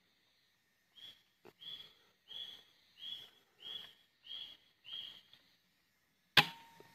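A short high note repeats seven times at about one and a half a second. Near the end a single sharp air rifle shot cracks out, the loudest sound, and a brief ringing tone follows it.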